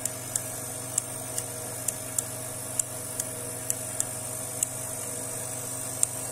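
Videojet 1510 continuous inkjet printer running its clean stop-jet flush: a steady machine hum with sharp clicks at uneven spacing, about two a second, as its valves open and close to flush the ink lines and nozzle.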